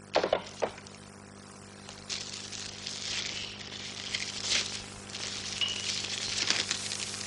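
Paper rustling and crinkling as a letter is opened and unfolded, from about two seconds in, after a few sharp clicks in the first second, over a steady low hum.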